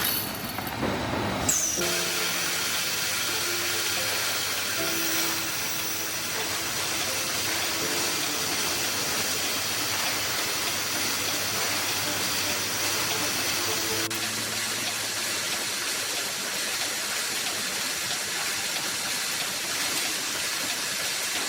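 Steady factory machinery noise: an even hiss with a high steady whine. It follows a louder, lower stretch that cuts off about a second and a half in.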